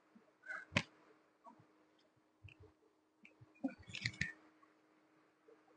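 Light clicks and knocks of plastic-plated dumbbells being gripped and lifted off a floor mat, a single click near the start and a short cluster of knocks about four seconds in.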